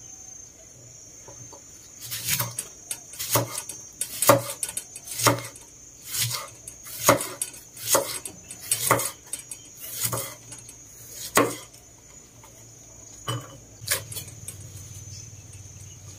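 Cleaver chopping an onion on a wooden cutting board: about a dozen sharp knocks roughly a second apart, starting about two seconds in, with a short pause before the last couple.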